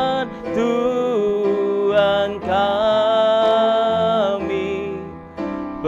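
Slow worship song: a woman singing long held notes that change pitch a few times.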